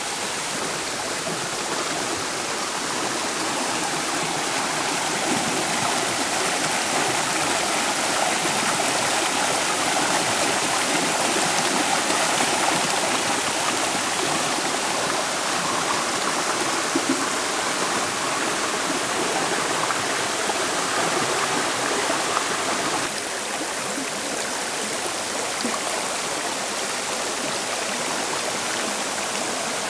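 Shallow mountain torrent rushing and splashing over rocks and small cascades, a steady wash of water noise that drops a little in level suddenly about three-quarters of the way through.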